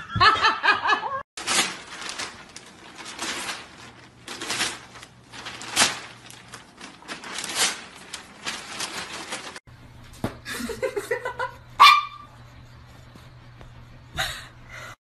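A dog barking, a run of short barks, with a few higher, wavering calls at the start and again about two thirds of the way through.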